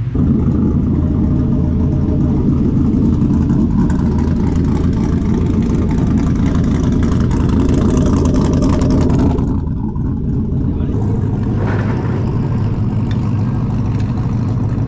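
A car engine running steadily. Its higher part drops away briefly about nine and a half seconds in, then the running carries on.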